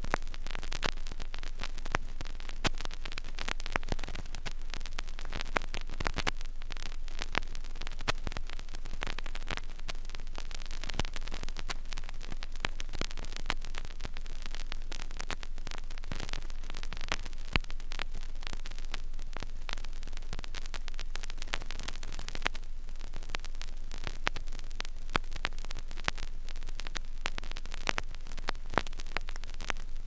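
Vinyl record surface noise from a blank stretch of groove: steady hiss with many irregular crackles and pops, over a low hum.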